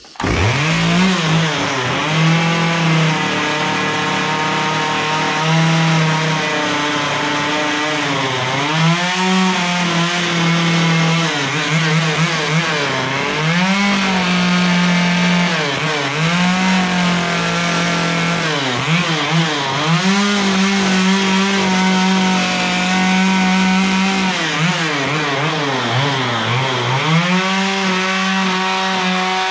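Stihl two-stroke chainsaw running at high revs while carving lines into a log. The engine pitch drops briefly toward idle every few seconds as the throttle is eased between cuts, then climbs back up.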